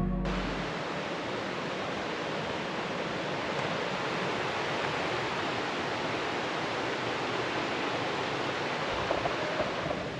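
Steady, even rush of flowing water with no breaks or changes.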